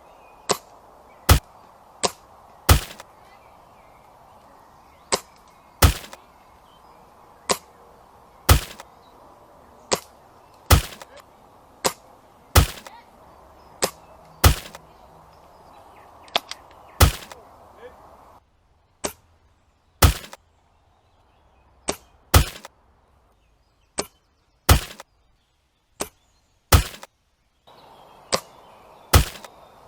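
Spring-powered bolt-action airsoft sniper rifle, an upgraded SSG10 A1, firing over and over: sharp cracks about once a second, several in close pairs. A steady hiss lies underneath and drops out for a stretch in the second half.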